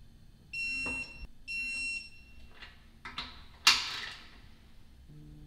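An electronic beeper sounds twice, two steady high beeps of about a second each, then a few light clicks and a sharp loud knock with a short ring.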